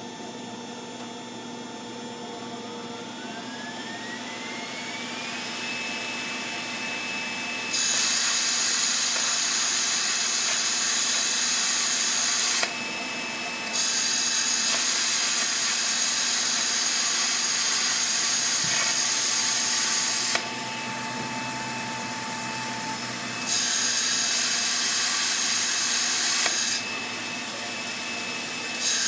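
Handheld plasma cutter cutting sheet steel: a loud steady hiss of the arc and air jet that switches on four times for several seconds each, with short breaks where the foot pedal turns it off. Before the first cut, a faint whine rises in pitch and then holds steady underneath.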